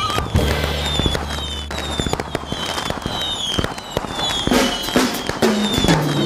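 Fireworks going off: a rapid run of bangs and crackles, with short falling whistles about twice a second and a low steady hum underneath.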